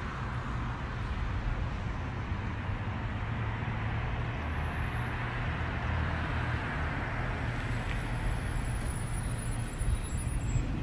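Steady low rumble with an even hiss, the sound of a motor vehicle on the road, with no distinct events.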